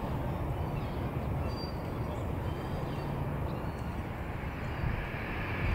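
Boeing 737-8 airliner's CFM LEAP-1B jet engines giving a steady low rumble as the jet rolls along the runway, with a higher hiss building near the end.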